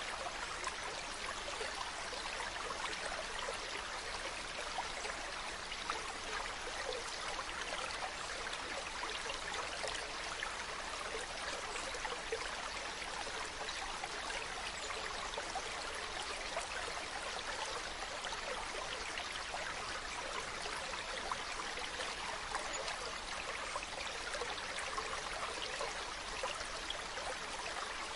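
Mountain stream running over rocks, a steady rush and babble of flowing water with small splashes throughout.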